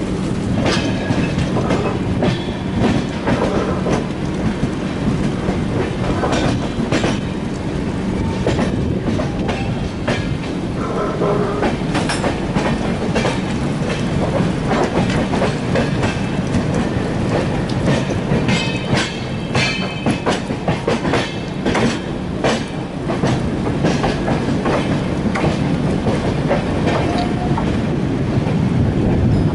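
Rajdhani Express passenger coaches running on the track: a steady rumble with the clickety-clack of wheels over rail joints and frequent short knocks and rattles.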